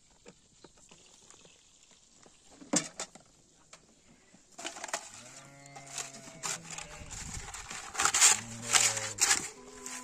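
Livestock bleating: several drawn-out bleats in the second half. They are mixed with a few sharp knocks, one about three seconds in and a cluster near the end.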